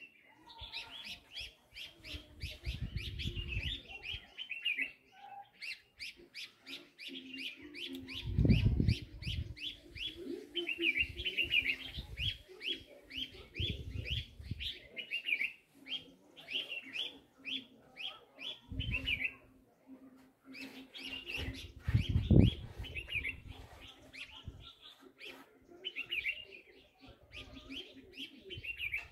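Small birds chirping, many short quick notes in rapid series, with a few brief pauses. A few bursts of low rumble sit under them, the loudest about a third of the way in and again about three-quarters through.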